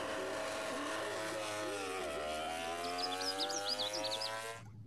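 Racing motorcycle engine running as the bike pulls away from a standstill, its pitch dipping about two seconds in and then climbing again. It cuts off abruptly near the end.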